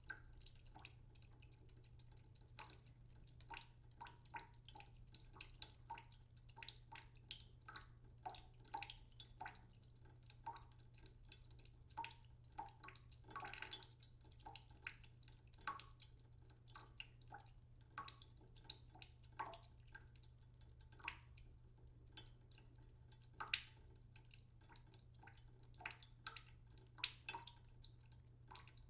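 Faint, irregular dripping and small splashes of water from boiled purple cauliflower florets and a slotted spatula as they are lifted out of a saucepan, over a steady low hum.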